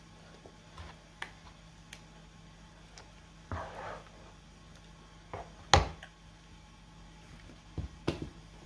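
Plastic spoon stirring grated purple yam in milk in a nonstick pan: soft swishes and scattered light clicks and knocks of the spoon against the pan, with one sharper knock about six seconds in and a few more near the end.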